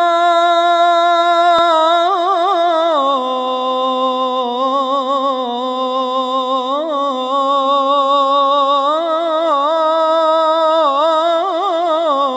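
A male muezzin chanting one long unbroken melismatic line, ornamented with quick trills and wavering turns; the held note steps down in pitch about three seconds in, and the line carries on at the lower pitch.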